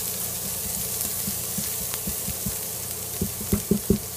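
Chopped shallot and garlic sizzling in an electric pressure cooker's inner pot on the sear setting, stirred with a silicone spoon. A quick run of knocks comes just after three seconds in.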